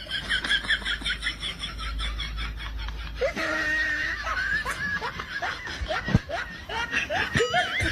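Person laughing: a rapid, high-pitched run of 'ha' sounds at about five a second for the first three seconds, then scattered shorter chuckles.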